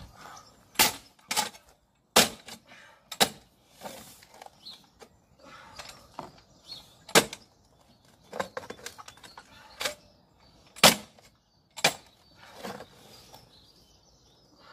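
Irregular sharp knocks of a hand tool striking rubble and hard ground while digging out an old fence post, with scraping between the strikes.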